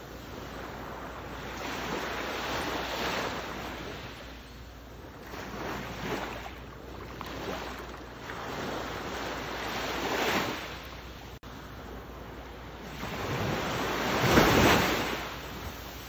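Ocean waves surging and receding in several swells, the biggest near the end. There is a split-second cut-out about two-thirds of the way through.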